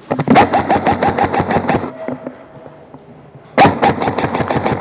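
Airsoft rifle firing two full-auto bursts of about eight shots a second. The first starts right away and lasts under two seconds; the second begins past halfway through.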